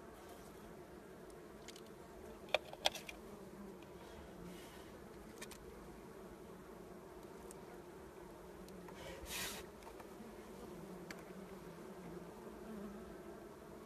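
Honeybees buzzing in a faint, steady, wavering drone, with two sharp clicks about two and a half seconds in and a short scraping rustle about nine seconds in.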